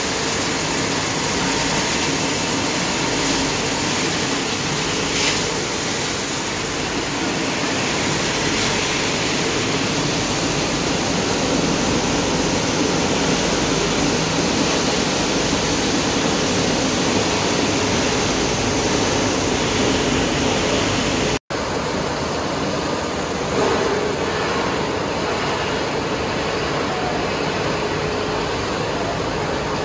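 Aluminium-plastic recycling machinery running: a loud, steady rush and hum from the crushing and grinding equipment. It drops out for an instant about two-thirds through, then the same steady machine noise carries on from the separating section.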